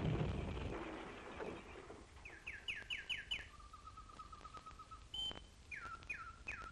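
A loud rushing noise fades out over the first second or two. Then small birds call: a quick run of five falling whistles, a steady trill, and another run of falling whistles near the end.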